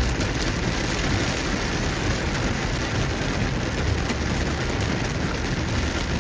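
Heavy rain falling on a moving car over tyre and road noise: a steady, dense hiss over a low rumble.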